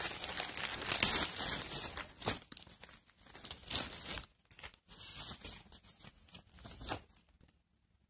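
Plastic courier mailer bag being torn open and crinkled by hand. The crackling rustle is dense for the first couple of seconds, then comes in scattered bursts of handling and stops about seven and a half seconds in.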